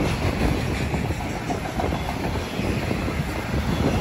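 A freight train's cars rolling steadily past, with a continuous clatter of wheels on the rails and no horn or bell.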